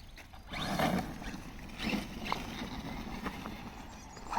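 Team Associated Rival MT10 radio-controlled monster truck moving on the ground as it lines up for a backflip: a few short scuffs and knocks, the loudest about a second in and another near two seconds.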